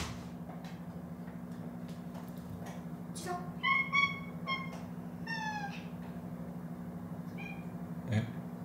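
House cats meowing for attention: two clear calls in the middle, the second falling in pitch, and a short faint call near the end. A low steady hum runs underneath.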